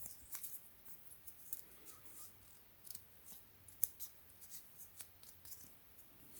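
A leather watch band with a metal buckle being fastened on a wrist: faint, scattered small clicks and light rubbing.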